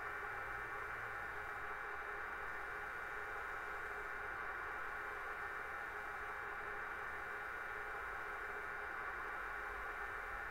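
Sound decoder in a model Siemens Vectron electric locomotive playing its standstill sound through the loco's small speaker: a steady hum and hiss with several steady high tones.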